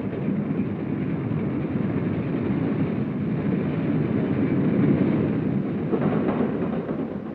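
A freight train running, a steady rumbling noise without a distinct beat that swells a little toward the middle and eases near the end. It is dull-toned, with the highs cut off as on an old film soundtrack.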